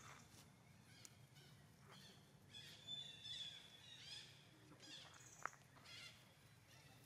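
Young macaques squealing faintly as they wrestle in play: a run of high-pitched chirping squeals through the middle, with a sharp short squeak about five and a half seconds in.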